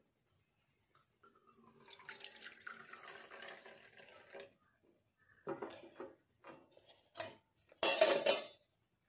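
Hot milk tea poured in a stream from a steel saucepan into a steel mug for a few seconds, then several light metal clinks and a loud clank near the end as the steel pan is set back down on the gas stove grate.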